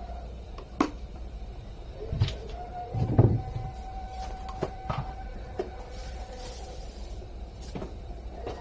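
Kitchen objects being handled: a series of scattered knocks and clicks, the loudest a low thump about three seconds in, over a steady low hum.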